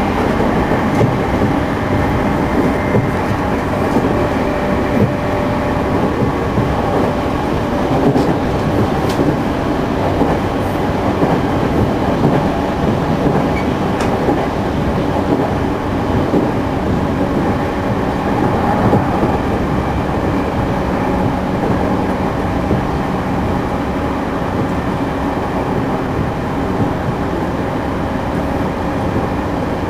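Running noise inside JR Central 211-series motor car KuMoHa 211-5612 under way, with steady motor tones over wheel and rail rumble. This car is singled out as one giving off an unusually loud, abnormal noise, which the title puts down to its internally fanned traction motors.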